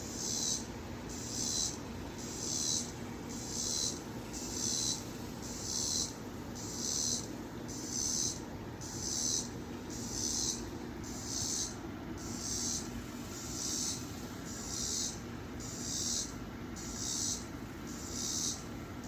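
An unseen animal in the trees giving a raspy, hissing buzz over and over, about once a second, each buzz about half a second long; whether it is a bird or an insect is not known.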